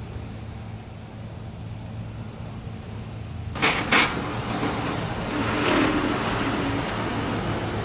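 A low, steady engine hum, then two sharp bangs half a second apart about three and a half seconds in, followed by the noise of a motor vehicle passing close by, swelling and easing off.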